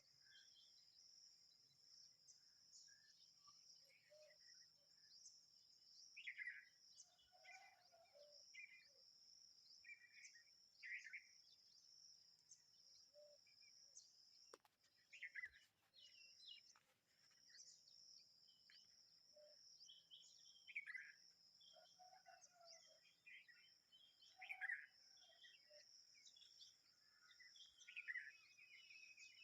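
Faint bulbul chirps and short whistled calls, scattered irregularly throughout, over a steady high-pitched insect drone that briefly drops out midway.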